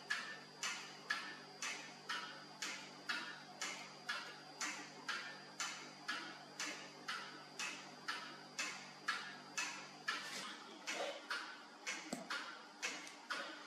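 Steady, even ticking at about two ticks a second, typical of a mechanical clock, over a faint low hum. Near the end the rhythm turns uneven and the hum drops away.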